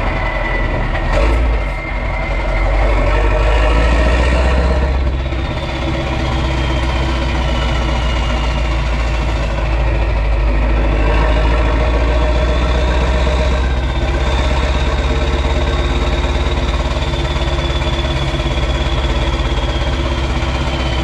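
Mack E9 16.4-litre V8 diesel of a Renault Magnum AE 560 truck running through an open exhaust, with a high turbo whistle over the deep engine note. The whistle rises a few seconds in and falls, then climbs again around the middle and slowly slides back down.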